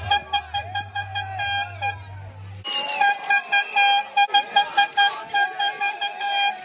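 Spectators' air horns blown over and over in short, rapid blasts on one steady pitch, over a crowd shouting and cheering. A low hum under them cuts off suddenly about two and a half seconds in.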